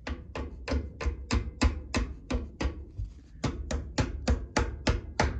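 Rapid sharp taps of a hand tool working at a badly rusted cotter pin on a golf cart's brake linkage, about three a second with a short pause partway through, trying to knock the seized pin loose.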